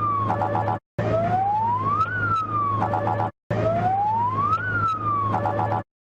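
Emergency alert alarm sound played back: a siren-like tone rises for about two seconds, falls briefly, then ends in a quick string of short beeps, over a steady low hum. The cycle repeats about every two and a half seconds, each time broken off by a split-second gap.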